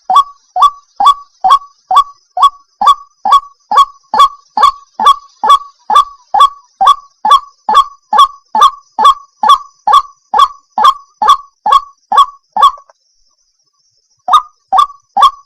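White-breasted waterhen (ruak-ruak) calling: one short, sharp, pitched note repeated at an even pace of about two a second. The calls stop for about a second and a half near the end, then start again.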